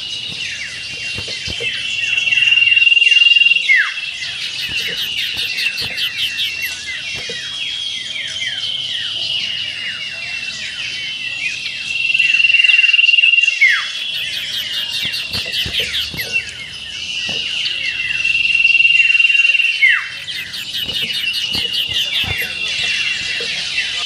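Common iora (cipoh) song: a dense run of quick falling whistled notes and a held high whistle, broken three times by louder bursts of very fast, high trilling (the 'ngetir' style).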